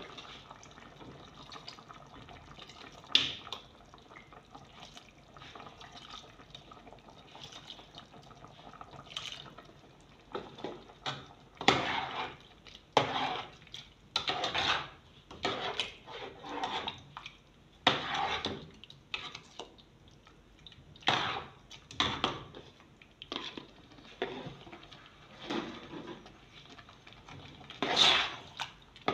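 A spoon stirring a pot of chicken curry sauce with vegetables as a corn flour and water slurry is stirred in to thicken it. There are a few isolated clicks at first, then wet stirring strokes come about once a second from about ten seconds in.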